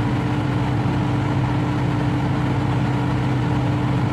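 Hitachi ZX350-5G excavator's diesel engine running at a steady speed, heard from inside the cab.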